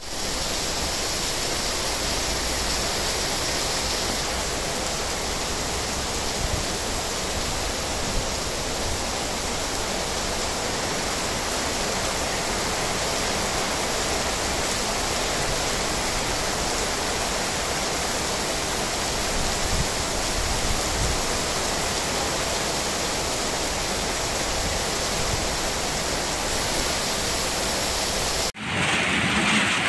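Heavy storm rain pouring down as a steady, even hiss. Near the end it drops out for an instant and a different stretch of rain noise begins.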